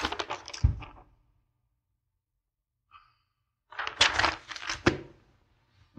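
Sheets of paper rustling as they are handled and flipped through, in two bursts: one at the start and a longer one about four seconds in.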